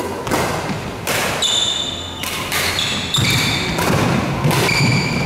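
A badminton doubles rally: sharp racket strikes on the shuttlecock, about one a second, each ringing briefly in the hall. Short high squeaks of court shoes on the floor come between the hits.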